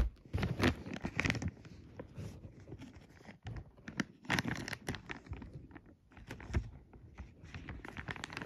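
Plastic Happy Meal toy bag crinkling and rustling as it is handled and torn open, in irregular bursts of crackles.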